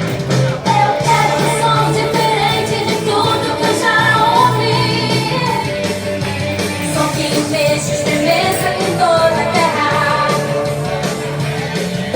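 Gospel worship song: singing over band accompaniment.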